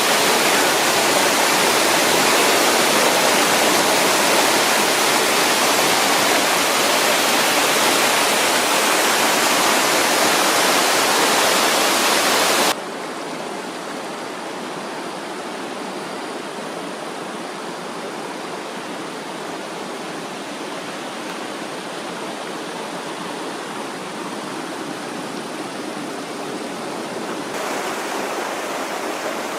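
Steady rushing of water. It is loud for about the first 13 seconds, then cuts suddenly to a quieter, softer rush, which changes slightly again near the end.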